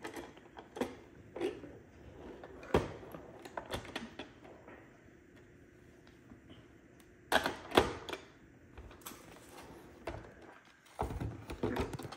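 Plastic clicks and knocks as a square robot mop is handled on a tabletop, turned over and pressed onto its mopping pad. The louder knocks come in a cluster about seven to eight seconds in and again near the end.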